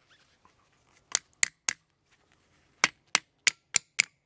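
Hammer tapping a steel Wedge-Loc wedge and collar down onto a steel T-post, sharp metallic strikes driving the wedge in to lock the corner brace collar tight. Three taps about a second in, then a quicker run of about five near the end.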